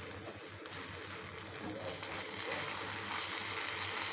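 Corn kernels frying in oil in a pan: a steady sizzle that grows gradually louder.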